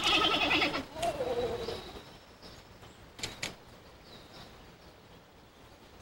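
Giant panda calling: a loud bleat-like call lasting about a second, then a second call that falls in pitch, and a short sound about three seconds in.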